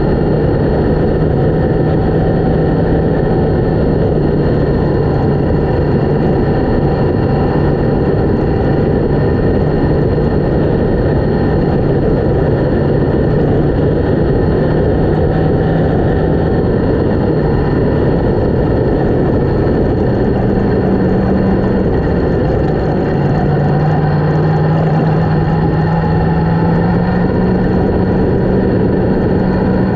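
Yamaha MT-10's inline-four engine running steadily at low speed, under a steady rush of noise. Its note steps up about two-thirds of the way through and rises slowly near the end.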